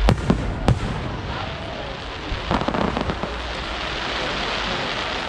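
Fireworks display: a few sharp bangs in the first second, then a steady wash of crackle from bursting shells.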